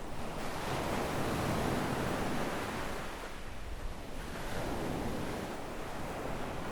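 Gentle sea waves breaking and washing up a sandy beach, two swells of surf a few seconds apart.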